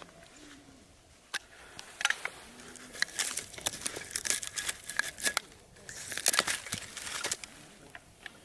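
Close handling noises: crinkling and rustling in two bursts, with scattered sharp clicks and taps.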